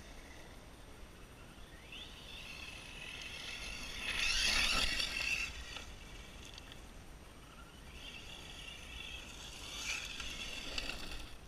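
High whine of an Arrma 6S short course RC truck's brushless motor as the truck is driven. It swells and fades with the throttle, loudest about four to five seconds in and again near ten seconds, with a brief rising whine about two seconds in.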